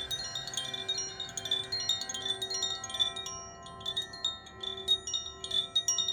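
Wind chimes tinkling continuously: many small, bright, irregular strikes ringing over one another, with low held tones underneath.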